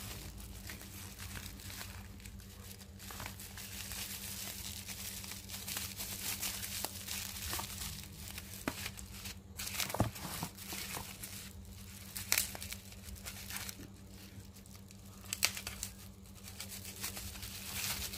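Plastic bubble wrap crinkling and rustling as it is handled and slit open with a box cutter, with a few sharp clicks and crackles scattered through it.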